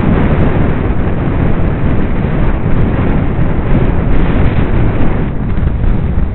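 Steady, loud wind buffeting a helmet-mounted camera's microphone while it moves along a road, a deep continuous rumble.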